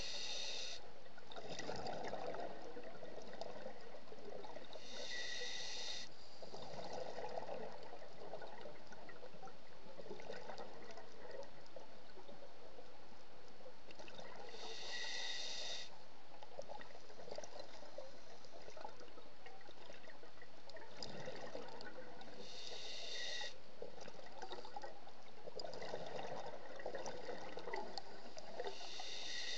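Scuba regulator breathing heard underwater. Each inhale is a hiss of about a second with a faint whistle in it, followed by a burst of bubbling on the exhale, in slow breaths several seconds apart.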